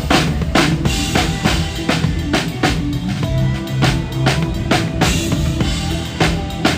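Live band playing, led by a drum kit with steady kick and snare hits about three or four times a second, over held low pitched notes.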